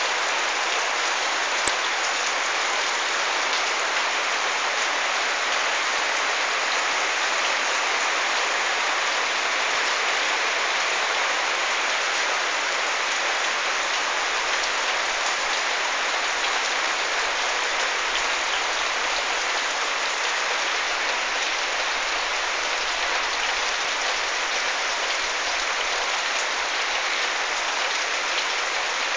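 Heavy rain pouring steadily onto a wet paved yard and garden plants, an even hiss that does not let up.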